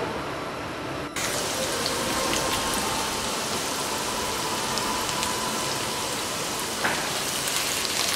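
Diced potatoes and onion frying in oil in a nonstick pan: a steady sizzling hiss. It is muffled under the glass lid for about the first second, then fuller and brighter once the pan is uncovered.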